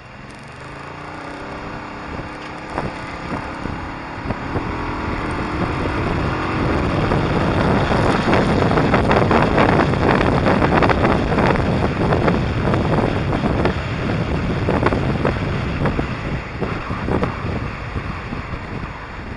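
Motorcycle engine pulling away, its pitch rising over the first several seconds as it speeds up, then rushing wind buffeting the microphone, growing loud at speed and easing a little near the end.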